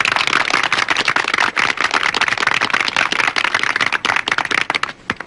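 Crowd applauding: many hands clapping fast and irregularly, beginning abruptly and dying away near the end.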